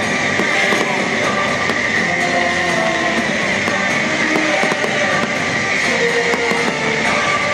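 Loud show music with electric guitar, playing continuously, with fireworks crackling and popping over it.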